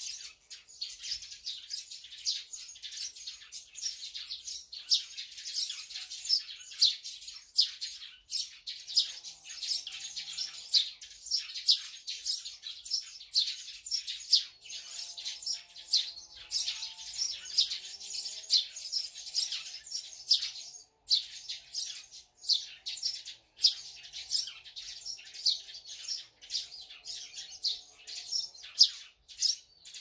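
A group of small songbirds chirping rapidly and without a break: short, high chirps overlapping several times a second.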